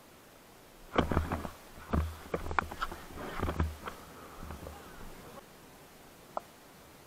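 Movement and handling noise on a chest-worn action camera: a cluster of irregular knocks, rubs and low thumps starting about a second in and dying away after a few seconds, then a single click near the end.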